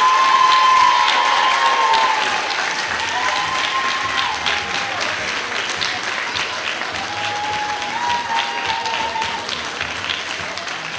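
Audience applauding, with a few long cheers rising above the clapping. The applause is loudest in the first couple of seconds and then slowly eases.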